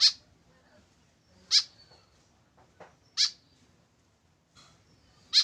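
White-breasted woodswallow giving short, sharp, high calls, one about every second and a half, four in all.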